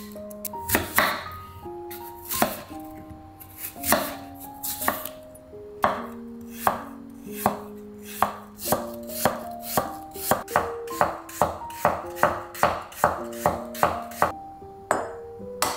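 Kitchen knife chopping peeled apple on a wooden cutting board: spaced-out cuts at first, then a steady run of about three chops a second through the second half.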